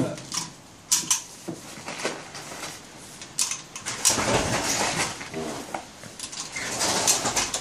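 1953 Tula SKS rifle being loaded by hand: irregular metallic clicks and clacks of cartridges and the action, with a longer spell of rattling and handling noise around the middle.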